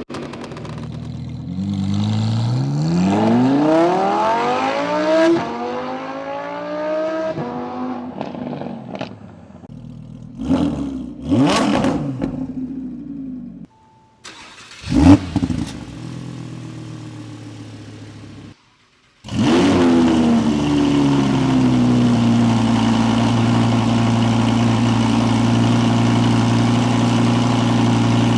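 Audi R8's V10 engine through its exhaust: it pulls up through the revs with a rising pitch, then gives several short, sharp throttle blips. After a brief gap it fires up with a flare and settles into a steady idle.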